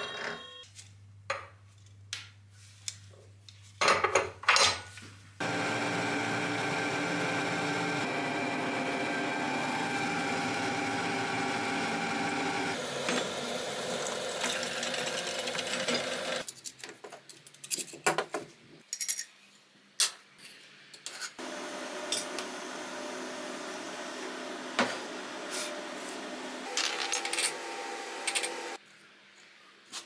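Workshop tool sounds: sharp knocks and clicks, then a long stretch of a steady running power tool, with further tool noises after it.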